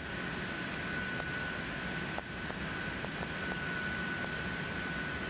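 Steady cabin noise inside an Airbus A380 climbing out after takeoff: engine and airflow noise from its Rolls-Royce Trent 900 engines with a steady high whine. Faint crackles from the camera's microphone overloading in the loud noise come through, one sharper crackle about two seconds in.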